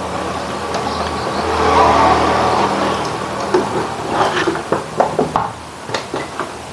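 Plastic back cover of a CRT television scraping against the set as it is fitted back on, followed by several light knocks and clicks as it is pressed into place.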